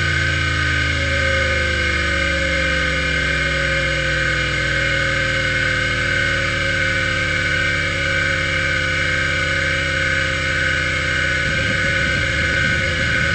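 Maxtor XT-8380S 5.25-inch full-height SCSI hard drive under a seek test: the head actuator seeking back and forth in rapid succession makes a loud, buzzy tone whose pitch slowly falls as the seeks reach farther tracks, over a steady high whine from the drive. About eleven and a half seconds in the buzz turns ragged as the drive moves on to random seeks.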